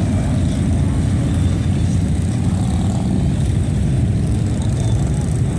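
A column of touring motorcycles riding past slowly in low gear, their engines running with a steady, deep, low-pitched sound.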